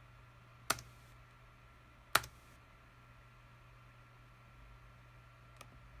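Computer mouse button clicking: two sharp clicks about a second and a half apart, then a faint third near the end, over a steady low hum.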